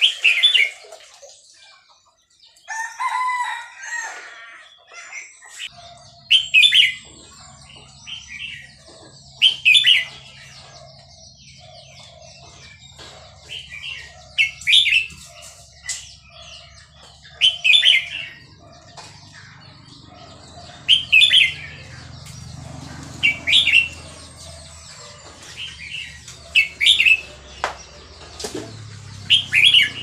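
Red-whiskered bulbul of the Burmese type singing short, loud phrases about every three seconds, about ten in all, over fainter calls of other birds.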